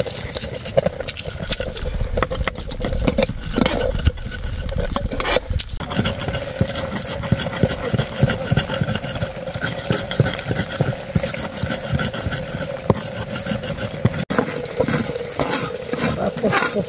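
Chilli and other ingredients being crushed on a flat grinding stone: rapid, irregular strokes of stone scraping and crunching over stone.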